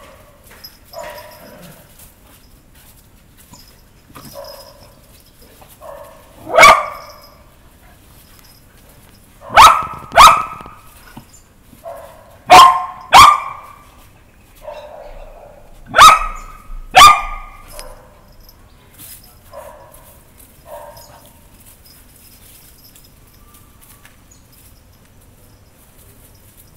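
Small curly-coated dogs barking: seven sharp barks, mostly in quick pairs, through the middle, with fainter short yips around them and a quiet last few seconds.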